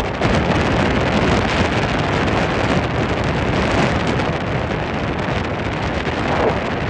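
Heavy wind buffeting the microphone of a speedboat under way across open water, a steady loud rush that covers the boat's engine and the water.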